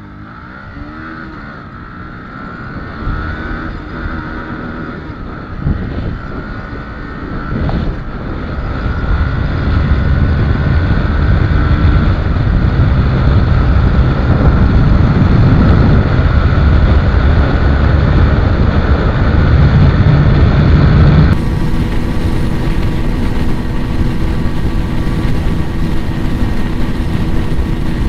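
A 125 cc single-cylinder Bajaj Pulsar motorcycle accelerating hard from a standing start through the gears, heard from on board, with wind rushing louder as it nears top speed. About 21 seconds in it cuts to the other bike's onboard sound, held flat out near 100 km/h amid wind.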